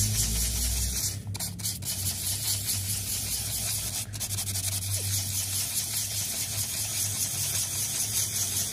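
Hand sanding inside the hollow of a mulberry wood scoop with a small piece of sandpaper: a steady rasping rub of abrasive paper on wood, with a few brief pauses about a second in and again at about four seconds.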